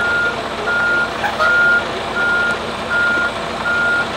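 Semi truck's backup alarm beeping while the truck reverses: one steady pitch in even beeps, a little more than one a second, over the low running of the truck's engine.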